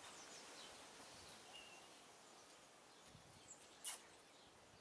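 Near silence: faint outdoor background with a few small, distant bird chirps, and one brief falling whistle a little before the end.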